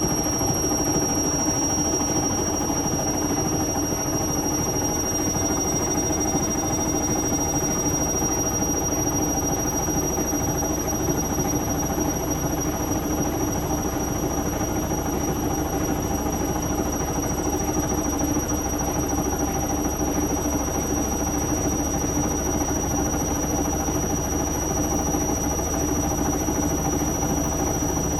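Indesit Moon SIXL145 washing machine in a high-speed spin, running steadily, with a continuous high-pitched squeal from its squeaky door seal that creeps slightly up in pitch.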